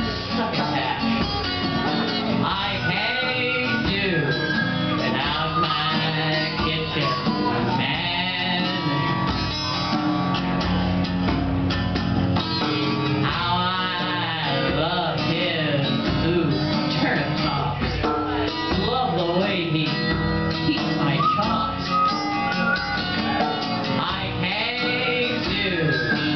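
Live acoustic guitar and hand drum playing an old jazz-blues tune, with a voice singing over them in places.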